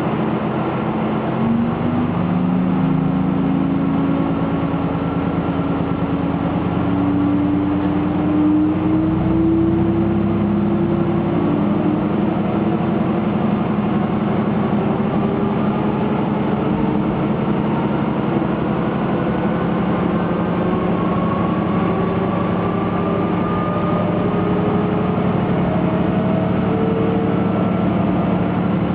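Diesel railcar's engine and transmission droning under power, heard inside the passenger cabin. About a second and a half in, the note starts to climb and keeps rising slowly in pitch as the train gathers speed, over a steady low hum and running noise.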